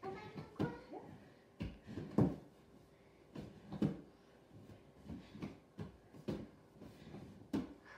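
Soft, irregular thumps and shuffles of hands, knees and feet shifting on a vinyl-covered foam gym mat as two people hold and change positions on all fours, the loudest about two and four seconds in.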